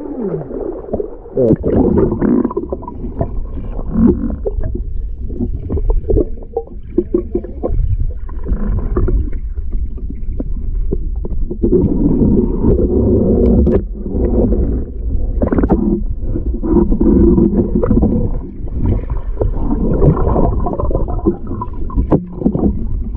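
Muffled underwater noise picked up by a submerged camera: low rumbling and gurgling of moving river water around the housing, with a few scattered knocks.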